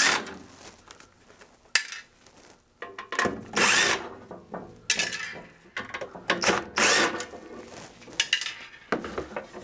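Cordless impact driver running in several short bursts, rattling as it backs screws out of a steel instrument case. The longest burst comes about four seconds in.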